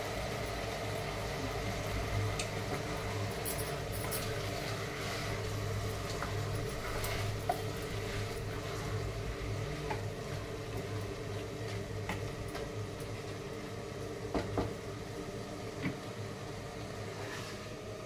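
A plastic spatula stirring blended tomato into chicken in a pressure cooker pot, with a few light knocks against the pot, over a steady mechanical hum.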